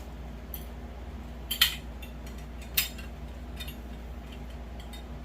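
Metal grow-tent frame poles clinking and knocking as they are fitted into their plastic connectors: a loud clack about one and a half seconds in, another near three seconds, and lighter taps between. A steady low hum runs underneath.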